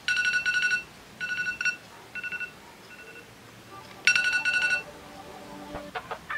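Smartphone alarm beeping in bursts of rapid pulses, the first few bursts growing fainter, then a loud burst about four seconds in before it stops. A few faint clicks near the end.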